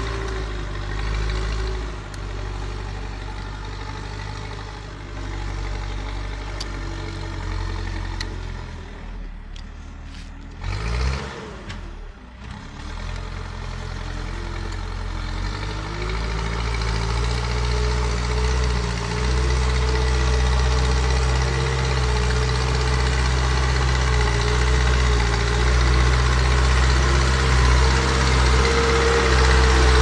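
Terex backhoe loader's diesel engine running as the machine drives and pushes soil with its front loader bucket. The engine fades to its quietest about a third of the way in, then grows steadily louder through the second half.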